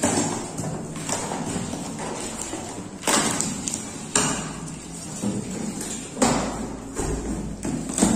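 Cardboard carton being opened by hand: packing tape pulled off, then the flaps lifted, with a string of sharp scrapes and knocks every second or two.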